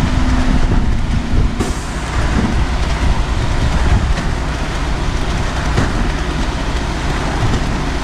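Concrete mixer truck running with its drum turning, discharging wet concrete down the chute. A loud, steady rumble.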